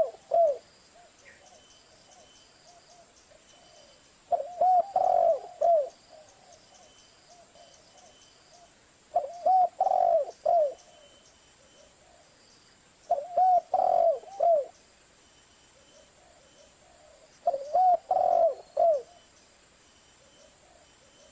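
Spotted dove cooing: a repeated phrase of several rounded, low coos, each phrase about a second and a half long and coming back about every four and a half seconds, four times over.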